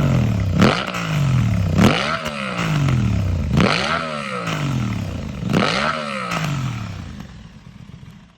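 Aprilia RS 660's 659 cc parallel-twin revved through a Mivv Delta Race stainless exhaust: four sharp throttle blips, each falling back slowly toward idle. The sound then fades away near the end.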